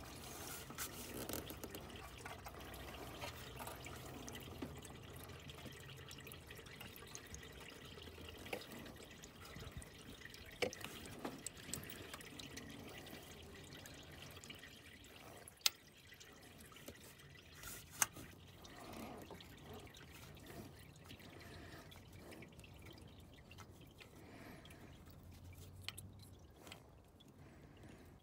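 Engine coolant dripping and trickling from the open coolant temperature sensor port, with a few sharp clicks.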